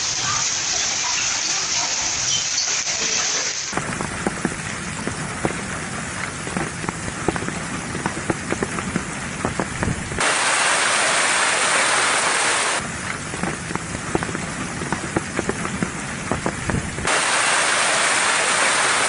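Heavy rain pouring, a steady hiss thick with the patter of drops, in several cut-together stretches whose tone changes abruptly at each cut.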